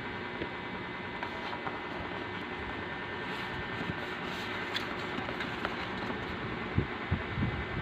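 Cardboard product boxes being handled: faint rustles and scrapes, with a few sharper knocks about seven seconds in as a box is set down or tapped, over a steady background hum and hiss.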